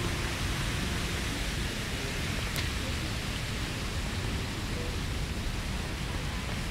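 Steady outdoor background hiss with a fluttering low rumble, with faint far-off voices and a single brief tick a little before halfway.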